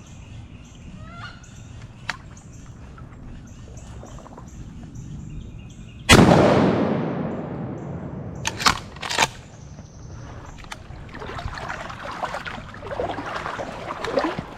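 A single shotgun blast about six seconds in, echoing and dying away over a couple of seconds, followed by two sharp clacks and then a stretch of rough rustling, splashing noise. Faint bird calls before the shot.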